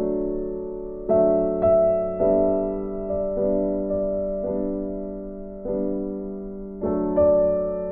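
Slow, gentle background music made of sustained chords. A new chord is struck about once a second and left to fade.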